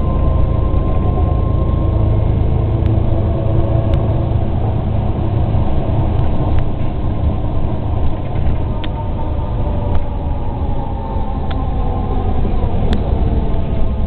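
Inside a moving city bus: steady engine and road rumble with a faint whine that slowly shifts in pitch, and a few sharp clicks or rattles scattered through it.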